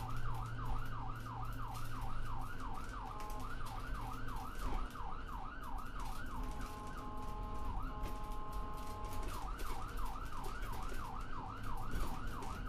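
Emergency-vehicle siren in a fast yelp, rising and falling about three times a second. For a few seconds in the middle it switches to a steady held tone, then the yelp resumes. A light crackle runs underneath.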